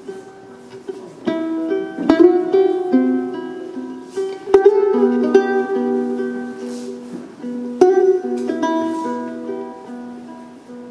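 Music on a plucked string instrument: a slow melody of ringing, sustained notes. A few notes are struck sharply, about two, four and a half, and eight seconds in.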